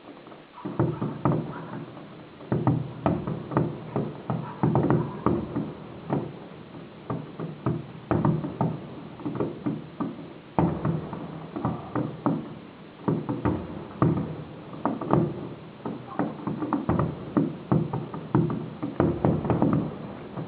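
Fireworks exploding in a rapid, irregular barrage of bangs, several a second, starting about half a second in and pausing briefly now and then.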